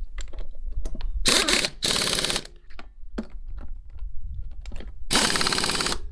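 Pneumatic impact wrench running the lug nuts down on a golf cart's rear wheel: three short bursts of rapid hammering, with sharp clicks of the socket and nuts between them.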